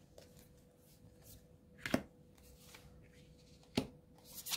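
Tarot cards being turned over and laid down on a table: a few short taps of card on table, the loudest about two seconds in and two more near the end, over a faint steady hum.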